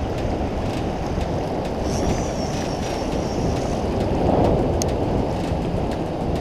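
Steady rushing of a strong river current churning around a wading angler below a dam spillway. A faint, thin high whistle comes in about two seconds in and lasts a second and a half.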